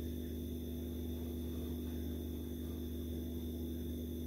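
Steady low electrical hum.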